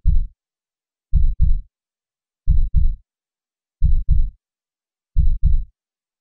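Recorded heartbeat sound effect: slow, low double thumps repeating evenly about every one and a third seconds, five beats in all.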